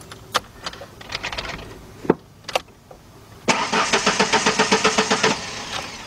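Ford Ranger's 2.3-litre four-cylinder engine cranking on the starter for about two seconds, an even chugging of about seven strokes a second, then stopping without ever catching: the engine cranks but will not start. A few sharp clicks come before the cranking.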